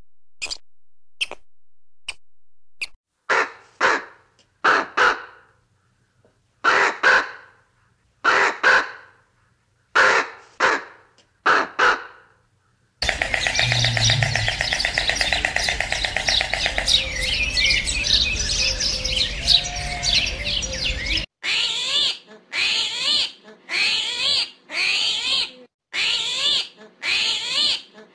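Birds calling in several separate takes: a run of sharp clicks, then loud calls repeated every second or two, then a dense chorus of chirps, then rhythmic chirping calls about once a second.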